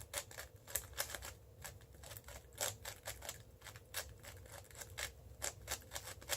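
Plastic layers of a Cubicle Labs WuShuang M 5x5 speed cube clicking as they are turned by hand, an irregular run of quick clacks several times a second.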